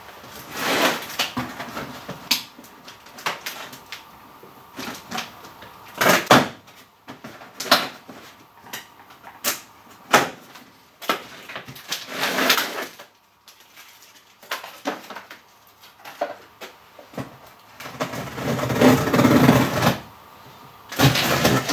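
Cardboard shipping box being handled and opened by hand: irregular knocks, scrapes and rustling of cardboard and packaging, with a longer stretch of rustling near the end.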